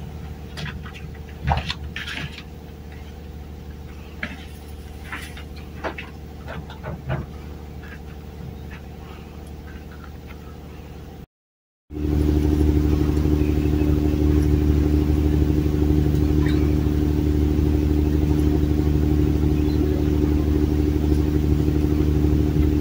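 A steady engine hum, with a few sharp clicks and knocks in the first half; after a cut about halfway through, the engine hum is louder and fuller.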